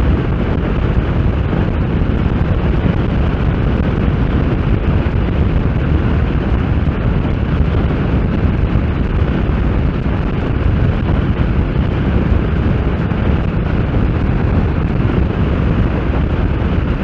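Steady wind rush buffeting the onboard microphone of a Kawasaki Z750S at a constant cruising speed, with the bike's inline-four engine running underneath.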